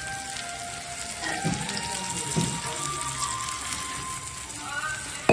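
Water being poured into a hot pan of frying chicken, a steady gushing hiss, with background music over it.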